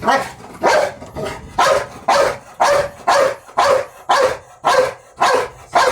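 Pit bull barking repeatedly in a steady rhythm, about two barks a second.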